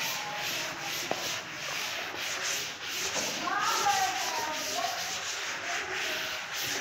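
Chalkboard being wiped clean with an eraser: rapid back-and-forth rubbing strokes, about three a second.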